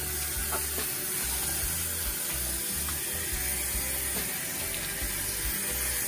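Kitchen faucet running a steady stream of water into a stainless steel bowl in the sink while a parrotfish is rinsed under it by hand.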